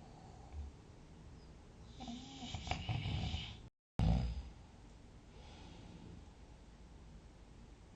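A sleeping person snoring: about two seconds in, a snore with a wavering low drone and a rattle breaks off in a brief dropout. At about four seconds a loud, abrupt breath fades quickly, and quiet sleep breathing follows.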